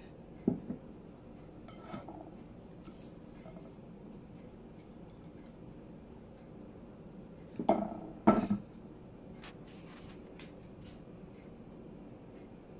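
Things handled and set down on a ceramic plate: a couple of knocks about half a second in, a few light clicks, then a louder cluster of knocks about eight seconds in as a jar is set down on the plate.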